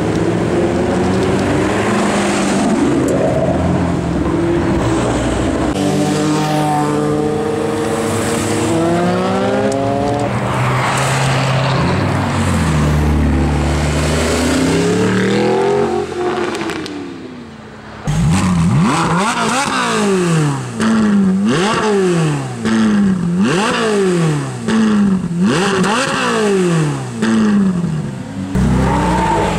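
High-performance car engines accelerating hard, pitch climbing through several quick upshifts. Then a Ferrari 458's naturally aspirated V8 is revved repeatedly while standing, about one sharp blip a second.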